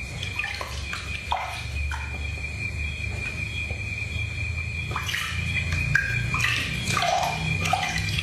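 Water sloshing and splashing softly in a plastic bath basin as hands scoop and rub water over a baby monkey, in short irregular splashes. A steady high-pitched tone runs underneath.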